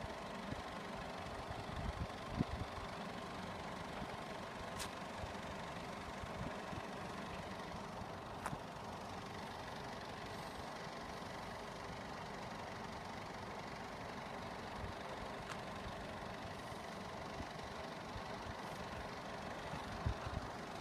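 Steady low hum of road vehicles idling, with a few faint clicks along the way.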